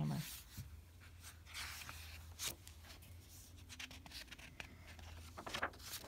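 Picture book being opened and its cover turned to the first page: soft paper rustling and sliding with a few light taps, over a faint steady low hum.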